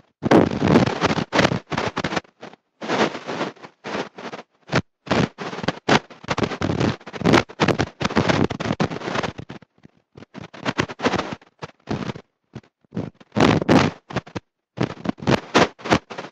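Harsh, noisy sound cutting in and out in short stretches at a speech-like pace, with dead silences between them: a badly distorted voice recording in which no words come through.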